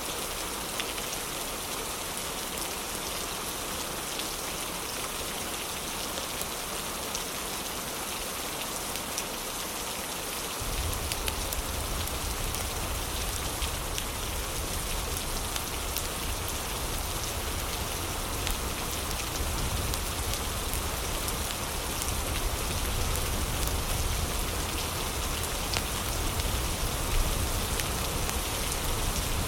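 Heavy rain falling steadily, an even hiss scattered with small drop ticks. About a third of the way in, a deep low rumble joins it and the sound grows slightly louder.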